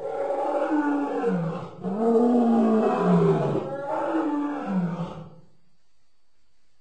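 Lion roaring: three long calls in a row, each falling in pitch, ending about five seconds in.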